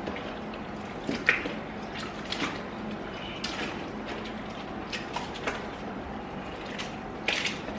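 Wet squelching and sloshing of a glue, water and borax slime mixture being kneaded and stirred by hand, in irregular squishes and splats.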